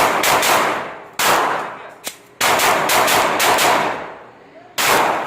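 A string of gunshots in quick succession, each shot followed by a long decaying tail: a burst of shots, a short pause, another burst, and a single last shot near the end.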